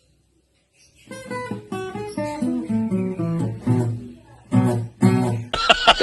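Acoustic guitar played, a short run of notes starting about a second in. Just before the end it gives way to loud cackling laughter.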